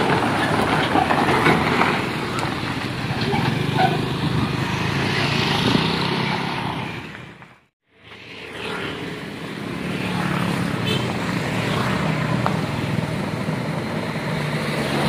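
Scania truck diesel engines running: first a tractor pulling an empty flatbed trailer drives past, then the sound fades out to silence about eight seconds in and fades back in on a Scania 114-series tractor's engine running steadily close by.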